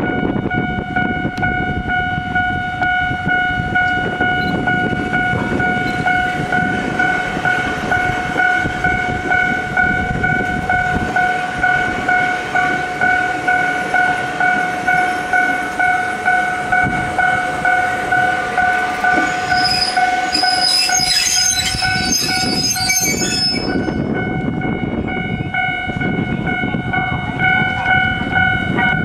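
Japanese level-crossing warning bell ringing in a steady, regular pulse while an Ichibata Electric Railway electric train rolls slowly past, its wheels rumbling on the rails. For a few seconds past the middle, high-pitched squealing from the wheels or brakes comes in over it.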